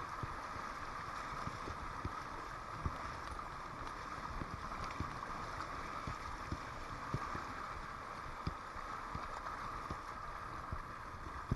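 Fast river water rushing and splashing around a kayak running a riffle, with scattered low knocks throughout.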